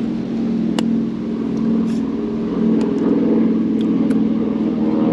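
An engine drones steadily at an even pitch, growing a little louder partway through, with a few light clicks over it.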